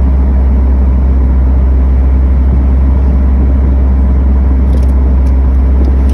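Steady low rumble of a vehicle driving on a paved road: engine, tyre and wind noise heard from inside.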